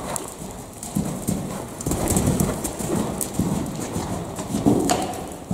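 Horse cantering on the sand footing of an indoor arena: a run of dull hoofbeats, the loudest near the end.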